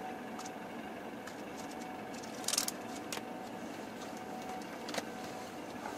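Steady low hum inside a car's cabin, with the engine idling, and a few small clicks and a short rustle about two and a half seconds in, as of the glove box contents being handled.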